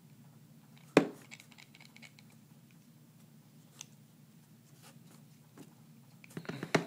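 FHM balisong (butterfly knife) handles being worked open and closed to spread lubricant into its stiff pivots: one sharp metal click about a second in, scattered light clicks, and a quick run of clicks near the end.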